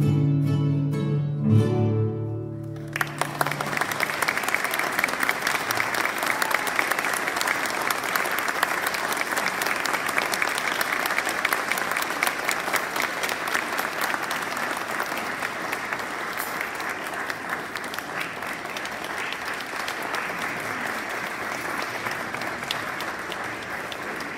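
Classical guitar's final notes ring and die away about three seconds in, then the audience breaks into sustained applause that slowly eases off.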